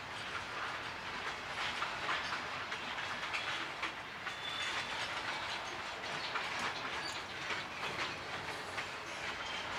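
Norfolk Southern freight train's tank cars and boxcars rolling past, steel wheels rumbling on the rail and clicking over rail joints in an uneven stream, with a few brief high wheel squeaks.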